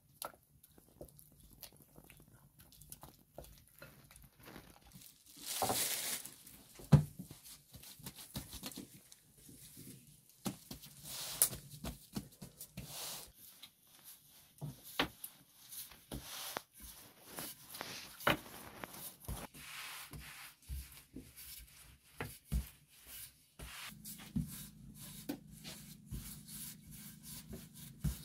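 Kitchen handling noises: a spatula stirring a filling in a glass bowl, then a long thin rolling pin rubbing and knocking as dough is rolled out on a wooden board. Scattered sharp taps and knocks run throughout, the loudest about seven seconds in.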